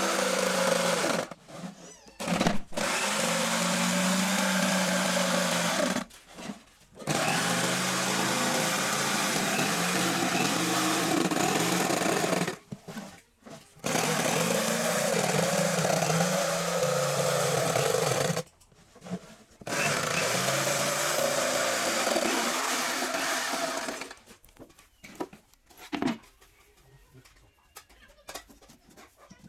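Electric jigsaw cutting a circular hole through plywood. It runs in five stretches of a few seconds each, with short stops between. Near the end it stops, leaving only a few faint knocks.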